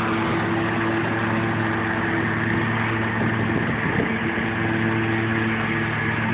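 Riding lawn mower engine running steadily at constant speed, its pitch wavering briefly about three to four seconds in.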